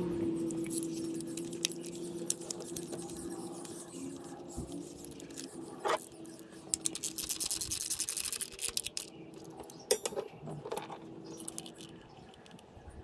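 Small clicks and rattles of hands working the plastic ignition-coil connectors on the coil packs, with a sharp snap about six seconds in, a rapid run of ticking just after it and another snap near ten seconds. A steady hum fades away over the first few seconds.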